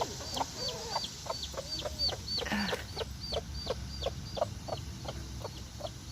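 Newly hatched chick peeping in a steady run of short high peeps, about three a second, with the broody mother hen clucking low in answer: hen and chick calling to each other.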